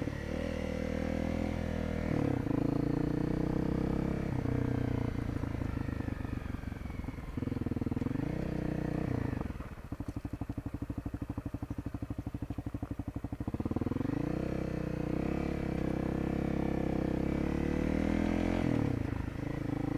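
Dual-sport motorcycle's single-cylinder engine under way, its pitch rising and falling as the bike pulls and shifts. It drops to a low, even putter from about ten to thirteen seconds in, then picks up again.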